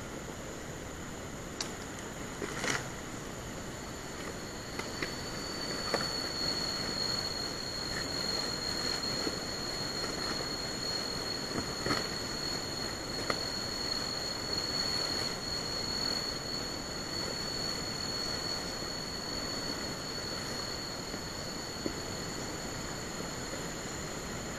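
A high, steady insect drone fills the air over a constant high hiss of insects. A louder, piercing tone joins about four seconds in and holds unbroken. Scattered knocks and rustles come from a rubber-latex box being handled and tied onto a motorbike's rear rack.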